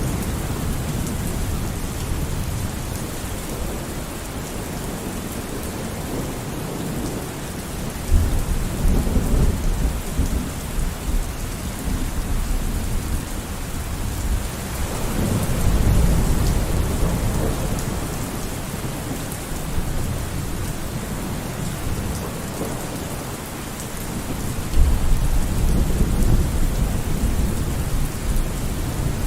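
Steady rain with thunder rumbling three times: about eight seconds in, around the middle, and near the end.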